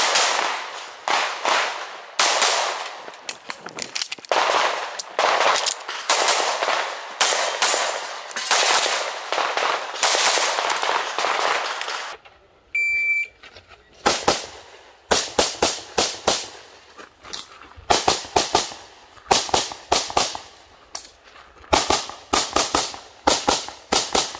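Competition pistol fired in rapid strings of shots, each with a ringing tail, through the first half. After a short lull comes a single high beep from a shot timer, then more quick strings of pistol shots until the end.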